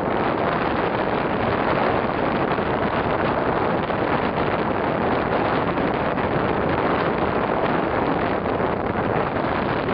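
Sandrails running in a line, their engine noise blended with wind buffeting the microphone into a steady, even rush with no distinct rev changes.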